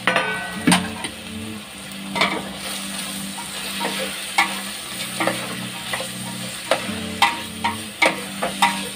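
A steel ladle stirring and scraping capsicum and spring onion frying in oil in a stainless steel pot. A steady sizzle runs under frequent sharp clinks and scrapes of the ladle against the pot.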